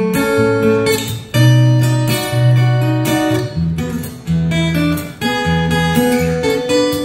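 Solo acoustic guitar played instrumentally: a plucked melody over low bass notes. The sound dips briefly about a second in and again around four and five seconds, each time followed by freshly struck notes.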